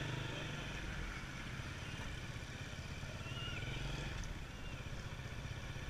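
Motorcycle engine running steadily at low revs as the bike rolls slowly, heard up close from a camera mounted on the bike.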